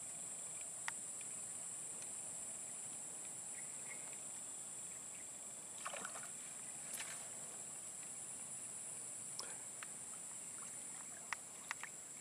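Insects drone steadily at a high pitch. A small snakehead splashes at a soft frog lure twisting across the water surface, with short splashes about six and seven seconds in, and a few sharp clicks near the end.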